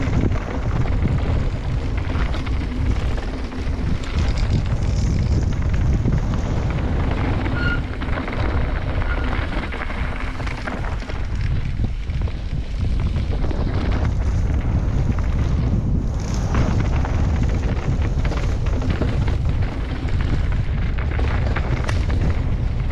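Wind buffeting the microphone over the rumble and rattle of a mountain bike running fast down a loose, stony dirt trail, with small knocks from the bike on rough ground throughout.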